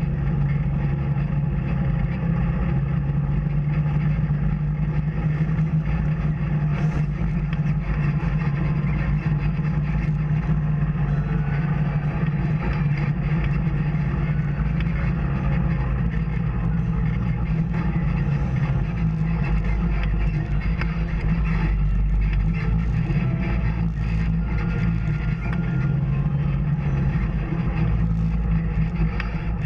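Off-road vehicle engine running steadily on a trail ride, its low hum holding nearly even with only small changes in pitch.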